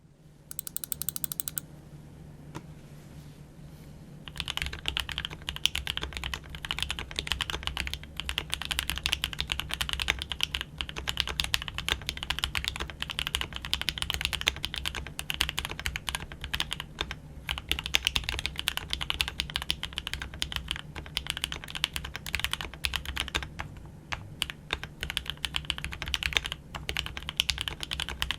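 Fast, continuous typing on a custom KBD67 Lite R3 65% mechanical keyboard with Gateron Black Ink v2 linear switches on a polycarbonate plate. A few light keystrokes open it, then dense typing starts about four seconds in, easing briefly near the end.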